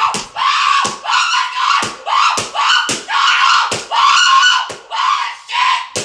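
A person's voice giving loud, high-pitched cries, about nine in a row, each under a second long with short breaks between.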